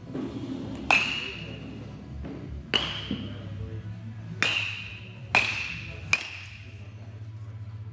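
A bat striking baseballs five times, each a sharp crack with a high metallic ring, the last about six seconds in, over a steady low hum.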